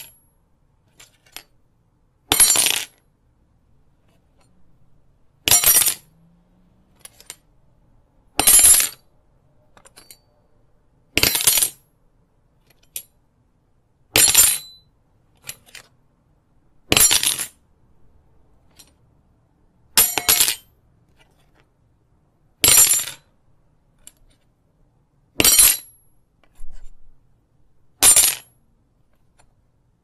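A metal knife dropped onto a linoleum floor again and again, about ten times, every few seconds. Each drop is a short metallic clatter with a bounce or two.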